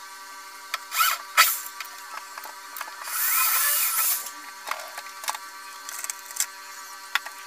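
Power drill run in short bursts at the ceiling: two quick spurts about a second in, then a longer run of about a second, with small clicks and knocks of handling between.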